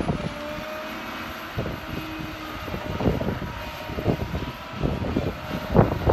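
Tigercat tracked harvester's diesel engine and hydraulics running with a steady drone while the machine works its felling head. Several short gusts of wind buffet the microphone.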